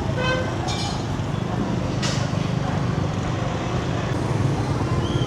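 Busy market street ambience: a steady low rumble of traffic with a few snatches of voices in the first second.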